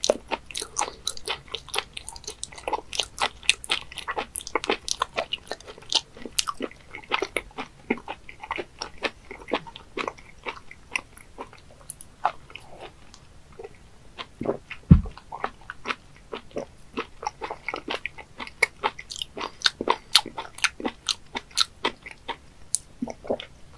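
Close-miked chewing of raw webfoot octopus sashimi: a dense run of sharp wet mouth clicks and smacks, thinning out briefly near the middle. A single low thump comes about fifteen seconds in.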